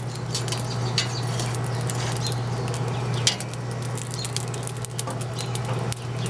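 Oiled spaghetti noodles sizzling and crackling on hot grill grates: an even crackle with scattered sharp pops, the sharpest about a second in and again near the middle, over a steady low hum.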